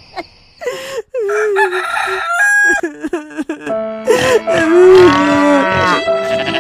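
Dubbed-in rooster crowing from about four seconds in, over background music, after short wailing cries about a second in.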